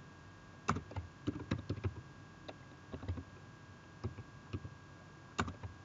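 Computer keyboard being typed on: irregular clusters of key clicks with short pauses between them, a couple of louder keystrokes about a second in and near the end.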